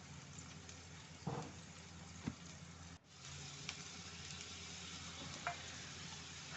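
Onion paste frying and sizzling faintly in ghee and oil in a kadhai, with a spoon clinking against the pan a few times as it is stirred.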